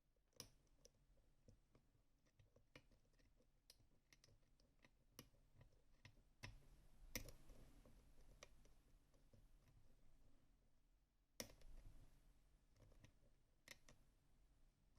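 Faint, scattered clicks and light metallic scraping of lock picking tools working inside a DOM RS Sirius cylinder lock, with two louder sharp clicks about seven and eleven seconds in.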